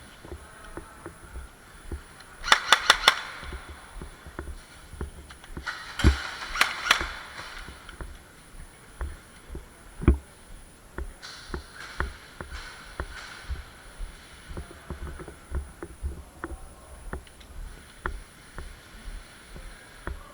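Airsoft guns firing: a quick string of four sharp cracks about two and a half seconds in and a few more around six to seven seconds in. Irregular low thumps and knocks of footsteps and gear run under them.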